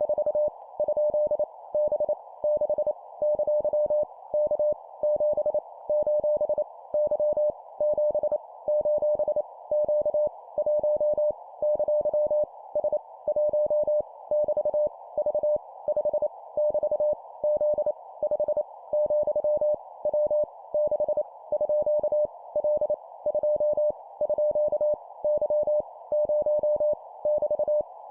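Morse code (CW) at 25 words per minute: a single steady beep near 600 Hz keyed rapidly in dots and dashes, sending random letters, numbers and punctuation, with short pauses between characters. A faint band of hiss runs under the tone and stays on through the pauses.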